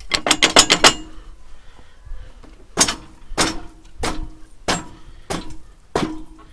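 Metal-on-metal knocks at a tractor plough's hitch, as a pin is worked out. A quick run of about eight strikes comes in the first second, then single blows follow about every two-thirds of a second, each with a short ring.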